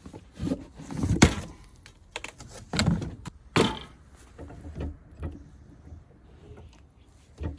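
A 4-inch cast-iron bench vise being handled and set down: a series of heavy knocks and clunks with short scrapes, the loudest a little over a second in.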